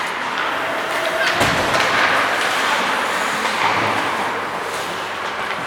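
Ice hockey rink during play: a steady wash of skate and rink noise with scattered sharp clacks of sticks and puck, and a heavier thud, such as a hit against the boards, about a second and a half in.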